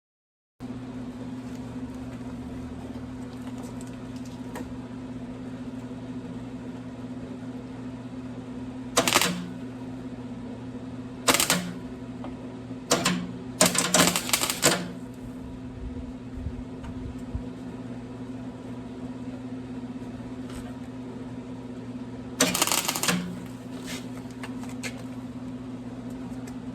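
MIG welder laying short tack welds on sheet steel: several brief bursts of sharp arc crackle, a cluster of them near the middle and one more near the end, over a steady hum.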